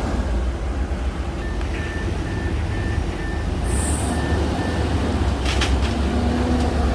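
Heavy diesel earthmoving machinery running with a steady low rumble, and a run of short, evenly spaced high beeps for about three seconds in the middle.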